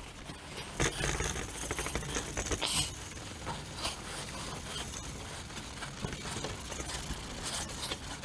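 Abrasive cloth scrubbing the inside of a copper gutter in rapid back-and-forth strokes, cleaning the metal bright at the seam before it is soldered.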